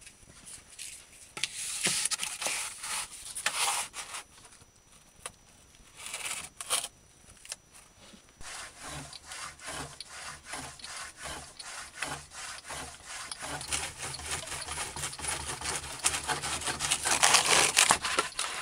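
Wood scraping and knocking as a log is slid into a plywood jig. From about halfway in, a hand-cranked saw blade cuts through the wooden log in quick, even strokes over a low drone, loudest just before the end.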